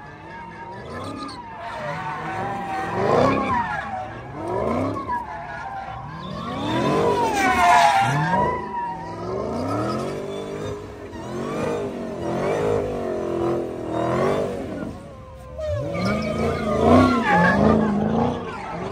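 Car spinning donuts: the engine revs up and down over and over as the spinning tyres squeal and skid.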